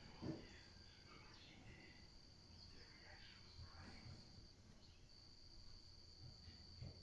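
Faint, steady high-pitched insect trill, cricket-like, running in long stretches with two short breaks. One brief low thump about a third of a second in.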